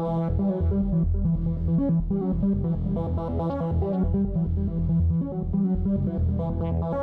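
Electronic loop played by the Motion subtractive digital synthesizer-sequencer: a repeating pattern of short synth notes over a strong bass line.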